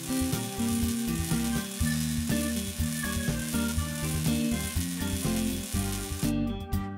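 Cartoon welding sound effect: a steady, crackling arc-welding sizzle from a robotic welding torch, over background music. The sizzle cuts off near the end.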